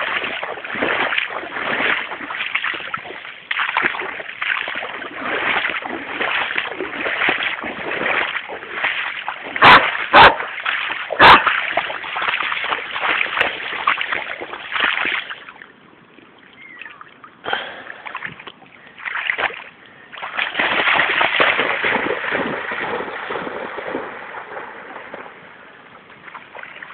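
Splashing and sloshing through shallow floodwater, from a person wading and a dog running through it, in uneven bursts. Three sharp knocks come about ten to eleven seconds in, and the splashing dies down for a few seconds past the middle before picking up again.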